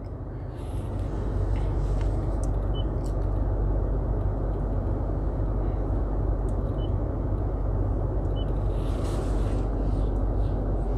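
2020 Toyota Tundra idling, heard from inside the cab as a steady low rumble under an even blowing hiss. Three faint short beeps come as the head unit's buttons are pressed.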